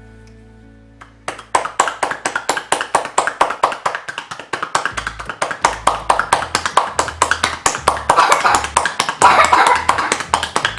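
Hands rapidly slapping and tapping a child's back, about five strokes a second, starting about a second in, over soft background music. This is percussion in a drainage massage, done to loosen phlegm in bronchitis.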